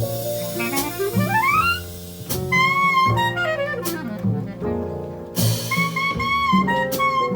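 A small jazz group playing. A saxophone plays a line that climbs in a smooth rising run about a second in, then holds long notes with vibrato, over double bass and drums with a few cymbal hits.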